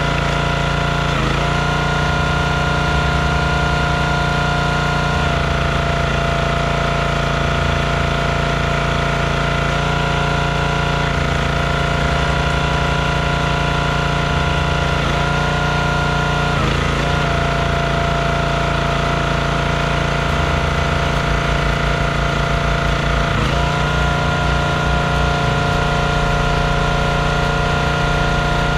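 Performance Built gas log splitter's small engine running steadily, its pitch dipping briefly a few times under load as logs are split.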